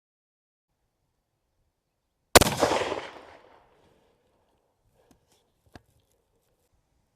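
A single rifle shot from a Sako Finnlight in .270 Winchester, fired without a suppressor as a barrel break-in shot. It rings out about two seconds in and dies away over about a second. A light click follows a few seconds later.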